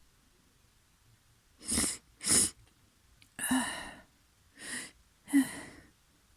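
A person with a congested, snotty nose sneezing several times in quick succession: five short, sharp bursts beginning a little under two seconds in.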